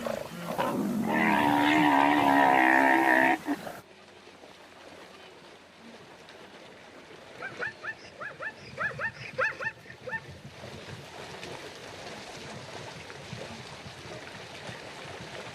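Animal calls: a loud, wavering drawn-out call lasting about two seconds, then a few seconds later a quick run of short, rising chirping calls.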